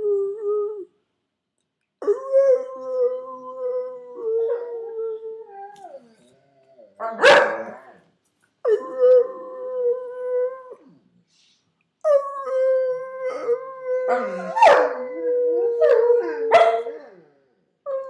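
Dogs howling in long held notes, three drawn-out phrases of a few seconds each with short pauses between, broken by a few short, sharp yelps.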